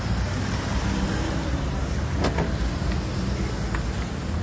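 Road traffic noise in a highway jam: a steady rumble of idling and slow-moving car engines, with two short clicks about halfway through.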